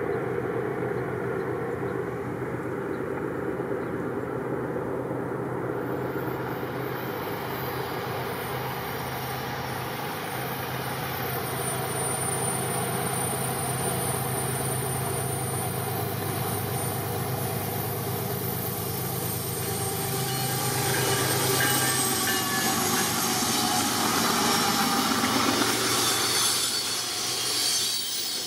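BNSF diesel freight train approaching and passing, its locomotives running with a steady low drone. In the last several seconds the loaded center-beam lumber flatcars roll by close, louder, with wheels squealing on the rails.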